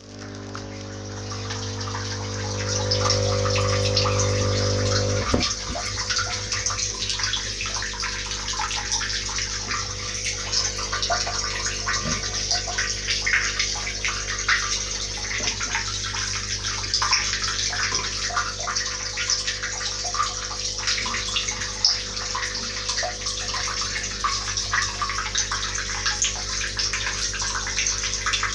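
Aerated fish tank: air bubbling up through submerged airline tubes, a steady crackling gurgle of small bubbles breaking at the surface. Under it a steady low electric hum, louder for the first five seconds or so.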